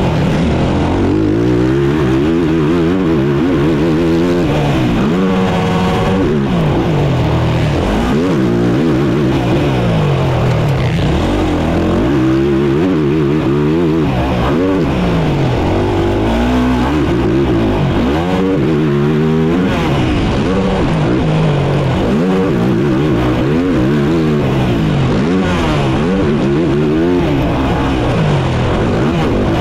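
Race quad's engine heard on board at full race pace, its pitch climbing and dropping back over and over as it revs up and comes off the throttle.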